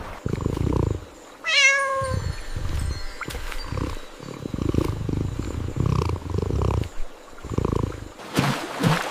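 A domestic cat purring in slow, repeating waves, with one short meow about a second and a half in. Near the end comes a quick run of sharp clicks.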